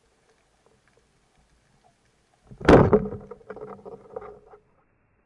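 Wooden band speargun firing underwater: one sharp loud crack as the rubber bands release and the shaft shoots out, followed by about two seconds of rattling clicks over a low hum.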